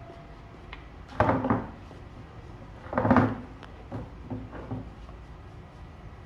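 Handling clatter: two louder clunking knocks with a short rattle, about a second in and about three seconds in, then a few lighter knocks.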